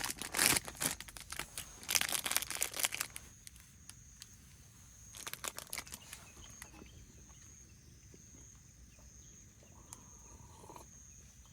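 Crinkling and rustling in three bursts of about a second each, near the start, about two seconds in and about five seconds in, the sound of material such as plastic packaging being handled. A faint steady high whine runs underneath.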